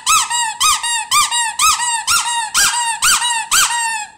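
Rubber dog squeaky toy squeezed over and over, squeaking about twice a second, each squeak a quick rise and fall in pitch, stopping just before the end.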